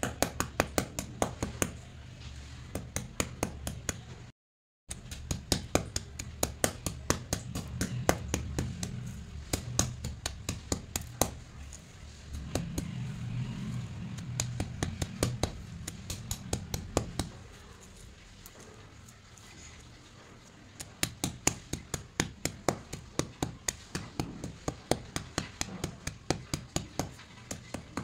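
White slate pencils cracking and crunching as they are crushed under a round grinding stone on a stone slab: a quick run of sharp snaps, several a second, over a low grinding rumble. The sound drops out for about half a second around four seconds in.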